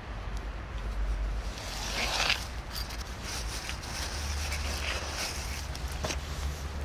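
A cat eating dry kibble: short, crisp crunches as it chews, over a steady low rumble.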